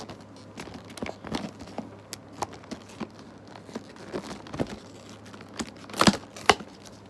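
Toy packaging wrap being peeled and torn open by hand: irregular crinkling and tearing, with two louder sharp crackles about six seconds in.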